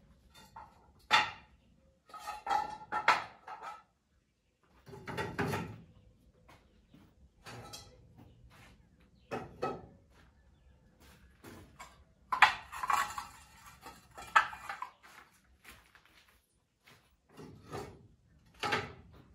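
Irregular knocks and clanks of metal scaffolding parts being handled, about a dozen separate hits with a longer run of clattering past the middle.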